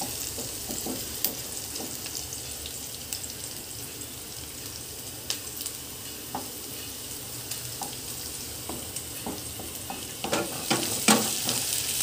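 Chopped onion and green chillies sizzling steadily in hot oil in a non-stick kadhai while a wooden spatula stirs them, with light scrapes and taps of the spatula on the pan that come more often and louder near the end.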